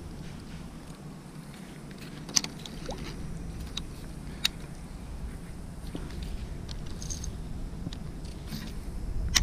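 A baitcasting rod and reel being cast and reeled in: a few short, sharp clicks over a low, steady rumble of wind on the microphone.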